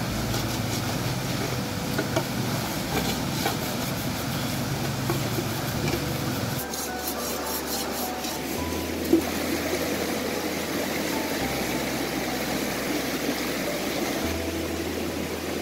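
Background music of low held notes that change every few seconds, laid over the steady rush of a fast river. Metal pots and bowls are scrubbed and scraped, mostly in the first half.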